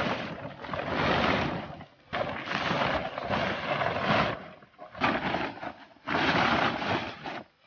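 Plastic tarpaulin rustling and crackling as it is hauled back and folded over on itself, in four long bursts of a second or two each.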